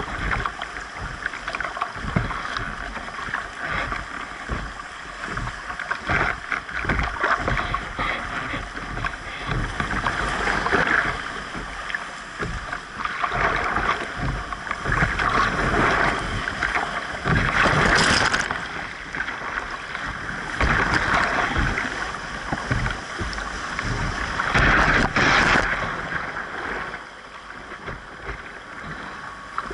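Whitewater rushing and splashing against a canoe running rapids, with frequent short low thumps. Two louder surges of splashing come about two-thirds of the way through and again a few seconds later.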